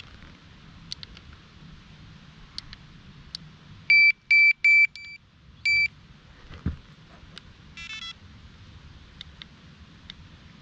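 Electronic fishing bite alarm beeping as it is fitted and set up: four short, high beeps in quick succession about four seconds in and one more a second later, with a quick stuttering burst of tones later on. Light clicks and a dull knock of the alarm and rod being handled.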